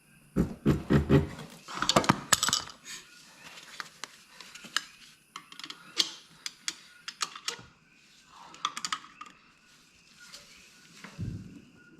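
Metal hand tools clinking and knocking against the clutch of a Honda Grom as someone works at a stubborn clutch centre nut, in irregular clusters of sharp clacks with quiet gaps between.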